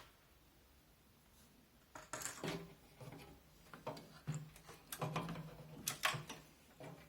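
Plastic case fan being handled and set into the bottom of a steel PC case: a run of irregular clicks and light knocks that starts about two seconds in.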